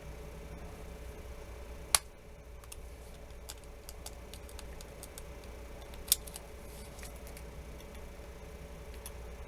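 A pry tool working under a phone's glued screen glass: scattered small clicks and ticks, with two louder sharp snaps about two and six seconds in, over a steady faint hum.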